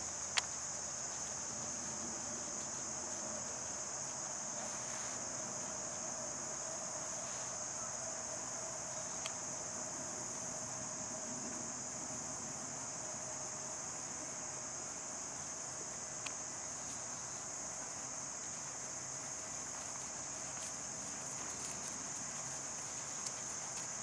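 Summer insect chorus: a steady, unbroken high-pitched trill with a fainter steady lower tone beneath it and a few soft clicks.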